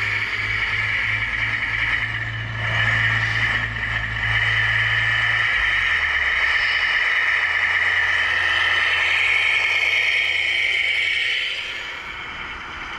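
Electric motors and gearing of RC scale construction models whining steadily and high, with a low steady hum underneath that stops about halfway through; the whine drops away near the end.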